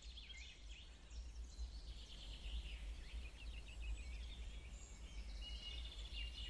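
Faint ambience of many small bird chirps, quick rising and falling notes, over a steady low hum.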